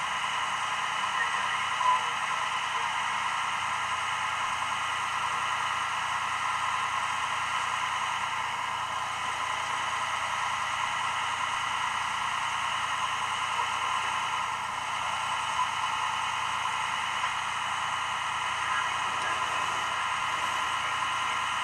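Steady static-like hiss, with one brief click about two seconds in.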